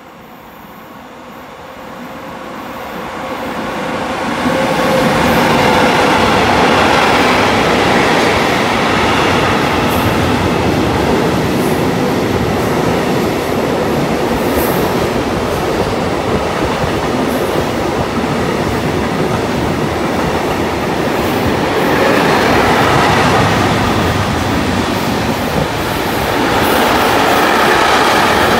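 Intermodal freight train of container wagons passing at speed close by. It grows louder over the first few seconds as it arrives, then holds as a steady loud rush of wheels on rails while the wagons go by.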